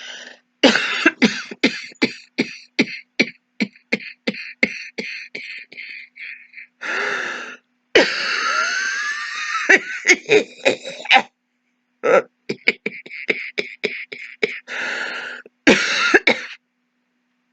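A woman acting out a continuous hacking cough: long runs of short, rapid coughs, about three a second, broken about eight seconds in by a long wheezing gasp for breath, then more runs of coughs. It is the going-on-and-on kind of cough that might be a COVID symptom.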